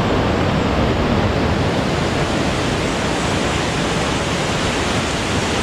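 Waterfall rushing steadily, a loud, even wash of falling water with no breaks.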